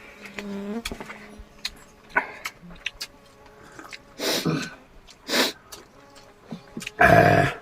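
Eating sounds at a shared meal: scattered light clicks of utensils and dishes, two short rushing sounds of breath or slurping, and a loud half-second burst near the end, like a sneeze or a sharp exhalation.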